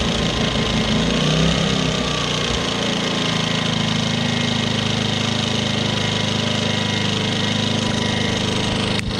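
Ryobi 1800W inverter generator's small engine running quietly just after starting, its speed wavering at first and settling to a steady idle about two and a half seconds in. A single sharp click near the end.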